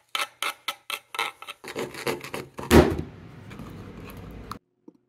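A stick stirring a thick white mixture in a plastic measuring cup: quick scraping strokes several times a second, then a louder bump, then a steadier rubbing that cuts off suddenly.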